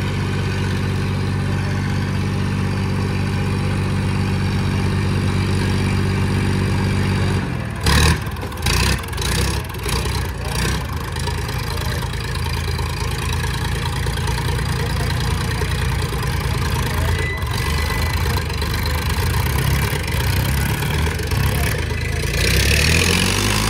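Diesel tractor engines in a tochan tug-of-war, chained back to back and pulling against each other. The engine runs steadily, then about seven seconds in its note turns rough and uneven as it labours under full load, with a few sharp knocks over the next few seconds.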